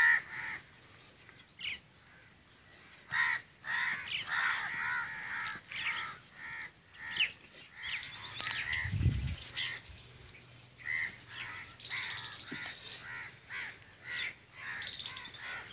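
Crows cawing on and off, with smaller birds chirping. A single low thump about nine seconds in.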